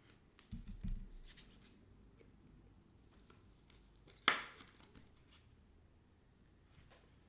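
Trading cards being handled: faint rustling and sliding of cards, with two soft thumps about a second in and one sharp click a little past four seconds.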